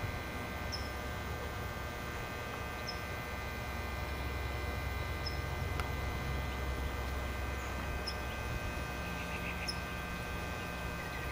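Small birds chirping: short, high, down-slurred chip notes every second or two, with a brief rapid trill about nine seconds in, over a low steady hum.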